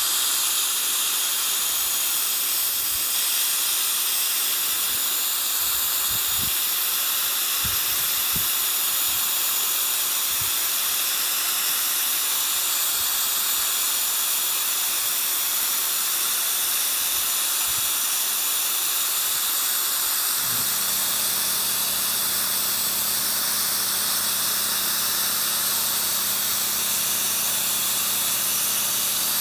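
Harbor Freight portable abrasive blaster spraying Black Diamond grit from its hand gun onto fiberglass: a steady hiss of air and abrasive. About two-thirds of the way through, the piston air compressor kicks on and runs with a steady low hum under the hiss.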